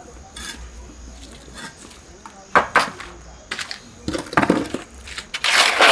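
Shovel scraping through sand and mortar and buckets knocking as they are filled, in several short bursts over the second half.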